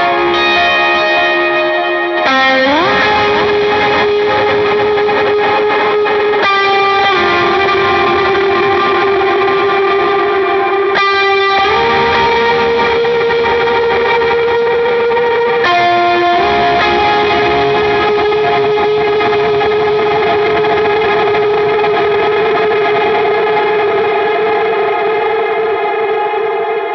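Electric guitar playing a slow lead line of long sustained notes through light overdrive and ambient reverb and delay. About two seconds in it slides up into a note, and the last note is held and rings out, fading near the end.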